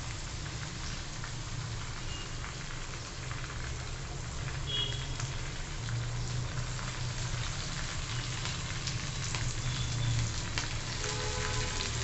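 Tempering (phodni) sizzling and crackling steadily in hot oil in a kadhai: mustard seeds, crushed ginger, garlic and cumin, asafoetida and freshly added curry leaves being sautéed, with a low hum underneath.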